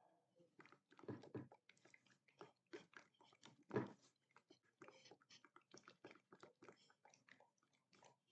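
Slime being squished and kneaded by hand: a faint, irregular run of small wet clicks and pops, with one louder pop a little before the middle.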